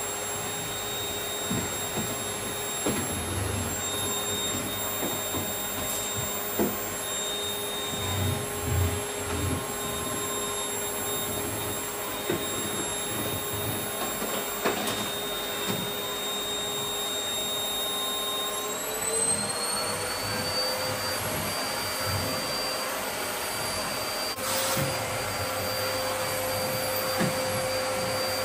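Canister vacuum cleaner running with a steady motor whine over a rushing hiss; about two-thirds of the way through the whine rises a little in pitch and holds there. A few light knocks of the nozzle on the floor.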